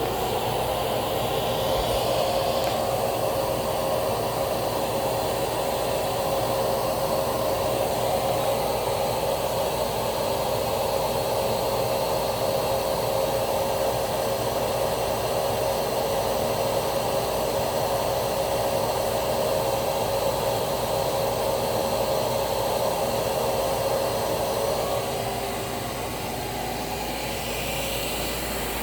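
Hoover S3639 WindTunnel Plus canister vacuum's motor running steadily during a suction test, a constant whine over rushing air. The sound gets a little quieter and changes about 25 seconds in.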